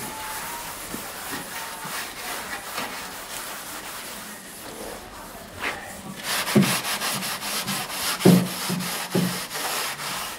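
Hand sanding of primed car body panels with sandpaper: a steady scratchy rubbing that gets louder about six seconds in, with quick back-and-forth strokes and a few light knocks against the panel.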